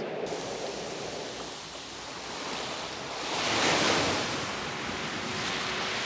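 Surf breaking and washing up a gravel beach. It swells to its loudest about three and a half seconds in as a wave runs up the shore, then eases.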